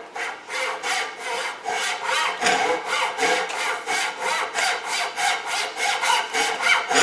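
Pull saw cutting through a wooden toolbox handle in quick, even back-and-forth strokes, about three a second.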